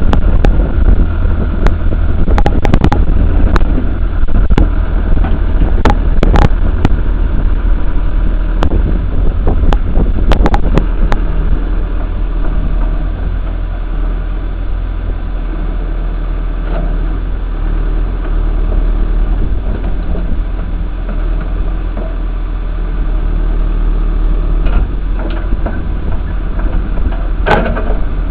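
John Deere 310 backhoe's engine running steadily, with scattered sharp knocks and clanks during the first ten seconds or so and a couple more near the end.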